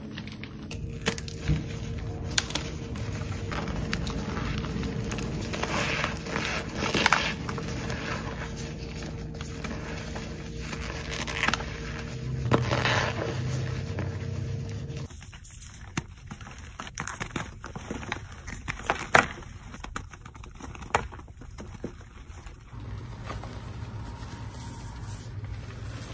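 Hands crushing and squeezing reformed gym chalk and loose chalk powder: a run of dry crunches and crumbling with sharper cracks here and there, the sound changing character a few times.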